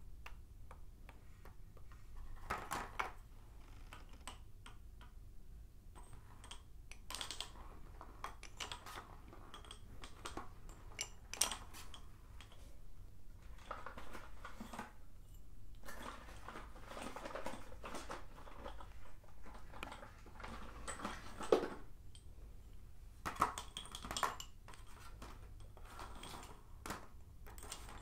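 Sticks of blackboard chalk clicking and clinking against one another and on a wooden-framed chalkboard as they are stacked and handled, in irregular light taps with short stretches of scraping.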